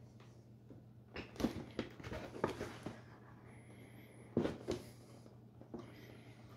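A cardboard box being handled and turned over in the hands: a cluster of knocks and scrapes about a second in, then two more knocks about four and a half seconds in, over a steady low hum.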